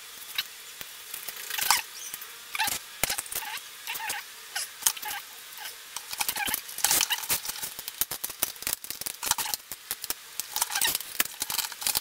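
Hands handling and fitting the plastic parts of an action figure onto its display base: irregular clicks, taps and rustles, with short squeaks now and then.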